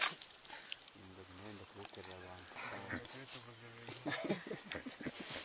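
A steady high-pitched insect drone from the forest. Between about one and four seconds in, a low humming voice sounds beneath it.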